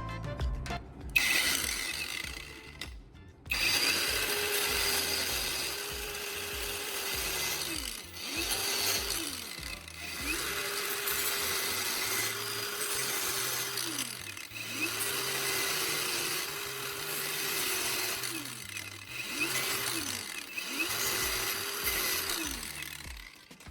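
Small motor of a power tool running in stretches, its pitch dropping and coming back up about six times, with a brief stop about three seconds in.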